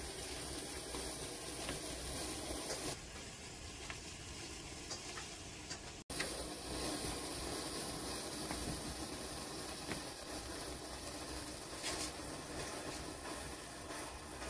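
Sparkler stick burning with a steady fizzing hiss and a few faint crackles. The sound cuts out briefly about six seconds in.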